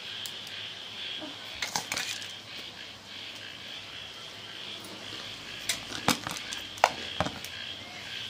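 Steel spoon clinking and scraping against a stainless steel plate of puffed rice, with a few clinks about two seconds in and a run of sharper, louder clinks between about five and a half and seven and a half seconds.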